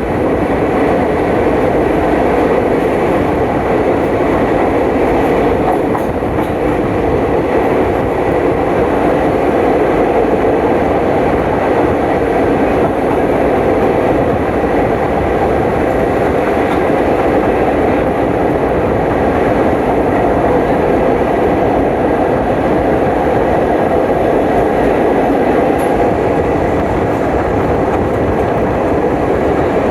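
Passenger train running steadily along the track, a constant loud rumble with no breaks.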